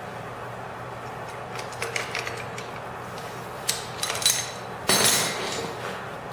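Metal clicks and clanks as an MGB crankshaft pulley comes free under a puller and the pulley and puller are handled, with the loudest clank, ringing briefly, about five seconds in.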